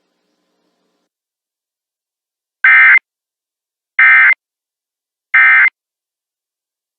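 Emergency Alert System SAME digital data tones sent three times as short identical bursts, each about a third of a second long and about 1.35 s apart, starting about 2.5 s in. This is the End of Message code that closes the alert test.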